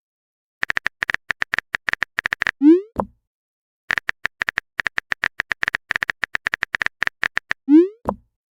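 Smartphone keyboard clicks tapping out a text message in quick runs, each run ending in a short rising swoosh as the message is sent. This happens twice.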